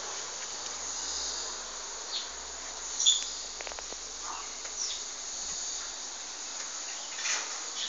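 Steady high-pitched insect drone with a few short, sharp chirps on top, the loudest about three seconds in.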